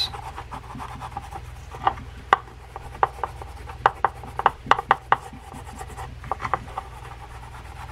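Small hand tool scraping and rubbing grime off the metal handle arm of a vintage big-game fishing reel, in short irregular strokes with the odd sharp click.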